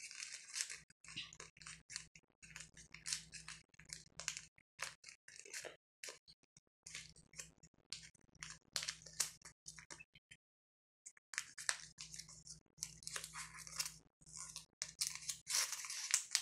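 Sheets of paper crinkling and rustling in short, irregular crackles as hands fold and tuck the pieces of an origami ninja star together, with a brief silent gap about two-thirds through.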